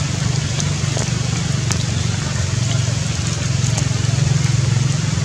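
A steady low motor hum with a constant hiss over it and a few faint scattered ticks.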